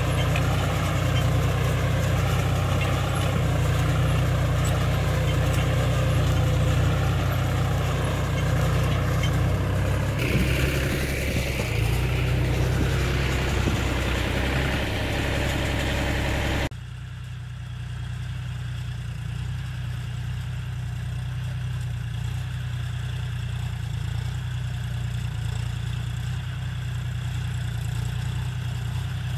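John Deere 5105 tractor's three-cylinder diesel engine running steadily under load, pulling a mouldboard plough through the soil. About two-thirds of the way through the sound drops suddenly to a quieter, duller engine drone, as the tractor is heard from farther off.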